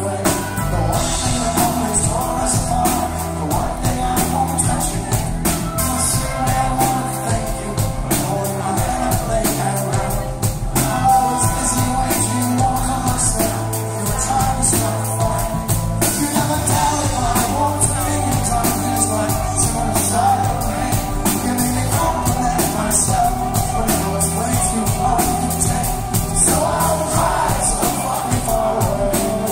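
Live rock band playing, with a male lead singer singing into the microphone over acoustic guitar.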